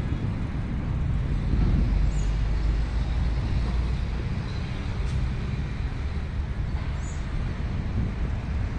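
Steady city traffic noise: a constant low rumble under an even hiss, with two brief faint high chirps, one about two seconds in and one near the end.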